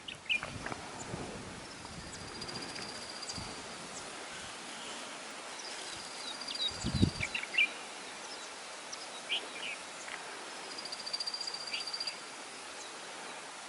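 Stone bunting, minivet and other small birds giving warning calls: three high trills, each about a second and a half long, with short sharp chirps between them. A steady insect hiss runs underneath, and there is a low thump about seven seconds in.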